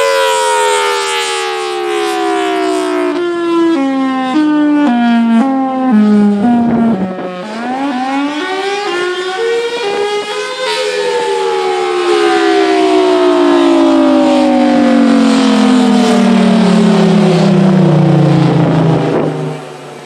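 Federal Signal Thunderbolt 1003 rotating mechanical siren sounding a fire signal: a loud siren tone that jumps back and forth between two pitches as it sags, drops low and climbs again about halfway through, then winds down in one long falling glide and dies away near the end.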